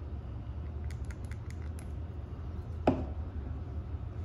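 Small clicks and ticks of hands handling a thread-locker bottle and a motorcycle axle spool with its bolt, with one sharper knock about three seconds in, over a steady low hum.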